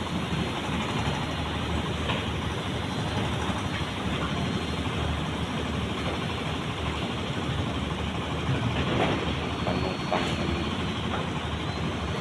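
Steady harbour background noise, a continuous rumble, with a couple of faint knocks near the end.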